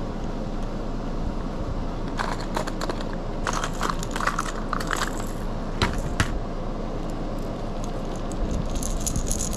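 Hard plastic lures with treble hooks clattering and clicking in a clear plastic tackle tray as it is handled and a crankbait is lifted out, with two sharp clicks about six seconds in. A steady low hum runs underneath.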